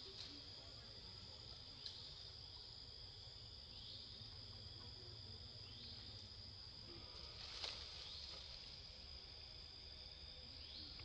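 Faint steady high-pitched insect chorus, with a short rising call about every two seconds. There is one brief sharp sound about two-thirds of the way through.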